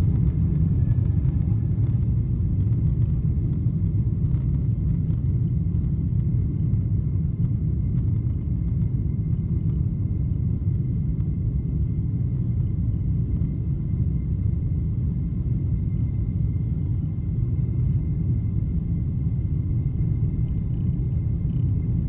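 Steady low rumble inside the cabin of a Boeing 777 taxiing with its engines at low power, with a faint steady high tone above it.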